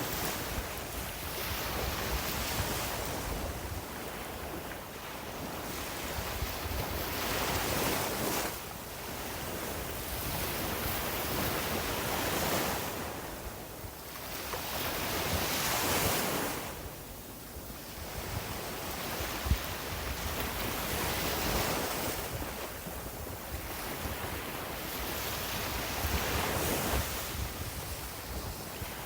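Sea waves breaking on a beach, the surf swelling and washing back every four or five seconds. There is a single short click about two-thirds of the way through.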